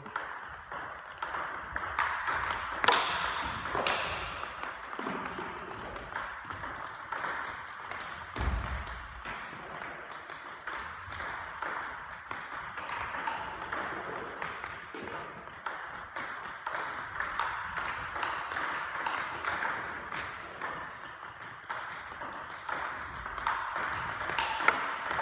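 Table tennis multiball drill: a rapid, continuous run of sharp clicks as the balls are fed one after another and struck back, ball on racket and ball on table.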